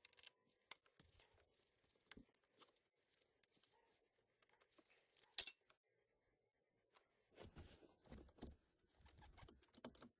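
Faint scattered clicks and light scraping of a screwdriver and hands working on screws that hold the ignition-switch actuator on a steering column. There is a louder click about five seconds in, then rustling handling noise near the end.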